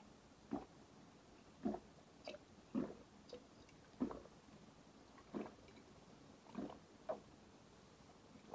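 A man gulping a drink from a mug, about nine faint swallows, roughly one a second.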